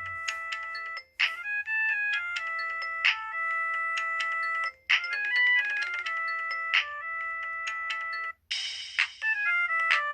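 Samsung SHC-Z120L flip phone playing a built-in polyphonic ringtone: a synthesized melody of short, quick stepped notes in repeating phrases, with a few brief noisy percussion hits near the end.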